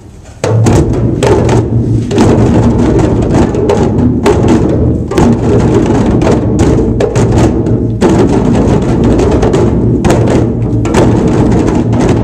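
A group of children playing djembe hand drums together. The drumming starts suddenly about half a second in and keeps going at a steady level.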